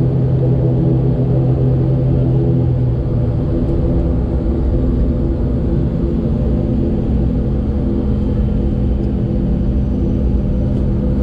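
Airliner cabin noise while taxiing: the engines' loud steady drone with humming tones through the fuselage. A strong low hum drops out about three seconds in, and a higher hum settles in near the end.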